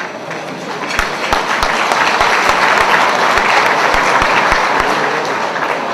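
Audience applauding, swelling during the first second and holding steady until near the end.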